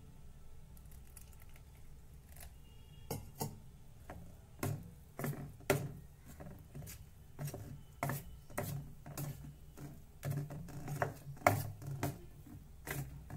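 Steel spoon stirring thick besan (gram flour) batter in a steel bowl, with irregular clinks and knocks of the spoon against the bowl, starting about three seconds in.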